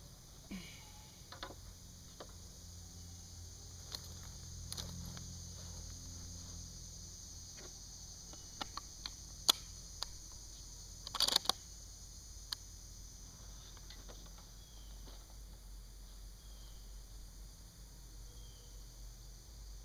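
Sharp metallic clicks and clacks from handling a scoped .30-06 rifle, a scatter of them in the middle with the loudest quick cluster a little past halfway, with no shot fired. Insects drone steadily in the background.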